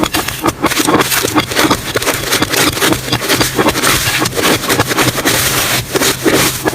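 Slime being squeezed and worked by hand, giving a dense, continuous run of small crackles and pops.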